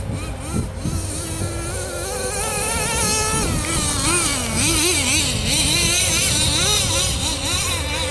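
Traxxas Jato 3.3 nitro RC car's small two-stroke glow engine running under throttle, its high, buzzing pitch climbing about two seconds in, then wavering quickly up and down as the throttle is worked.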